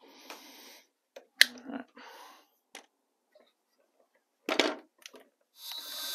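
Short knocks, scrapes and clicks from handling a wooden riser and a spring clamp, the loudest a single sharp click about a second and a half in, with a short clatter about four and a half seconds in. Near the end a DeWalt cordless drill starts running steadily, driving a drywall screw into the riser.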